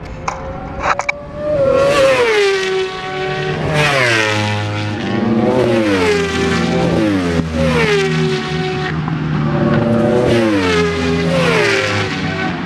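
World Superbike racing motorcycles passing one after another at high revs, about half a dozen times. The engine pitch drops sharply as each one goes by. A few clicks come in the first second.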